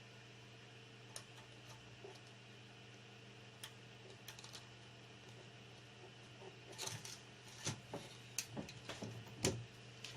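Faint clicks and taps of the monitor's plastic and metal parts being handled and fitted back together during reassembly of the LCD panel. A few scattered clicks come first, then a busier run of taps and rattles in the last few seconds, the loudest just before the end, over a steady low hum.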